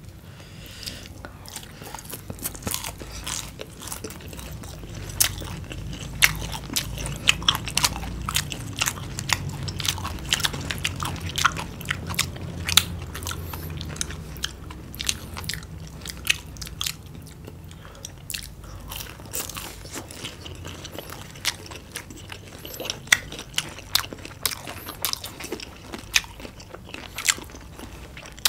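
Crunchy biting and chewing of battered, deep-fried chicken, onion and peppers by two people: a dense, irregular run of crisp crunches.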